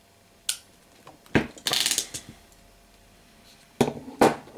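Ratcheting crimping tool being squeezed onto a small connector pin and wire: a quick run of ratchet clicks about two seconds in, with a few single clicks and snaps around it.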